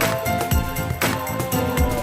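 Background music with a steady beat: held melodic notes over a regular drum pulse.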